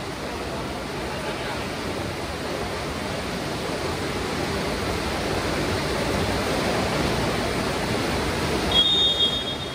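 Steady rushing background noise in a gym, then a short, sharp referee's whistle blast near the end.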